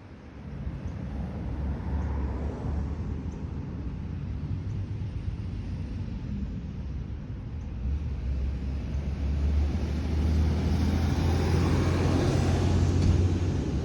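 Airbus A380's four jet engines at takeoff power: a deep, steady rumble that grows louder and fuller over the last few seconds.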